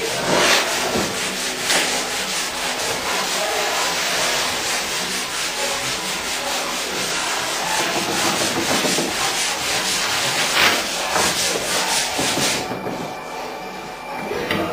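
Wooden panels being slid and rubbed by hand across the bed of a vacuum membrane press: a continuous rubbing, scraping noise that thins out about three-quarters of the way through.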